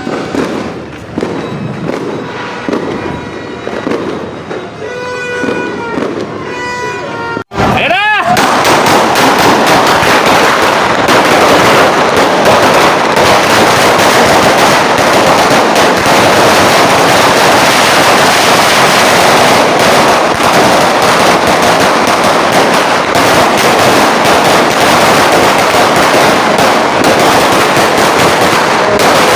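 A long sawa firecracker belt of 3,000 rounds going off as one unbroken, rapid crackle of small bangs. It starts abruptly after an opening stretch of music or voice.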